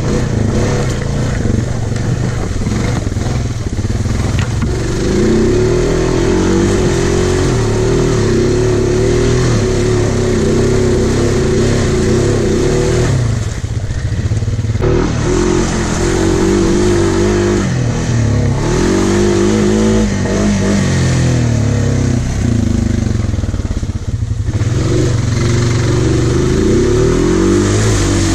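Honda Foreman 500 ATV's single-cylinder engine revving up and down as it is driven through mud, its pitch rising and falling repeatedly, with short drops in revs about halfway through and again about two-thirds through.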